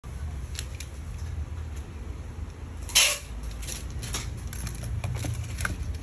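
Small plastic trigger-spray bottles being handled, with a few light plastic clicks, and one short spray hiss about three seconds in. A steady low hum runs underneath.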